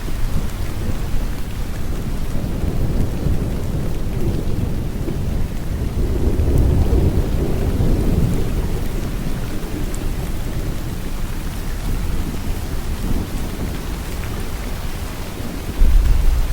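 Steady heavy rain falling, with a low rumble of thunder that swells about six to eight seconds in and another that starts abruptly near the end.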